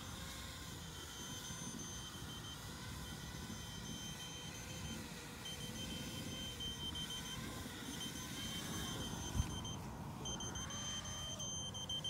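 Repeated high electronic alarm beeps from radio-control gear, each lasting a second or so with short gaps, typical after an RC quadcopter has crashed. Under them is a steady pitched motor drone that wavers slightly, and there is one sharp knock about nine seconds in.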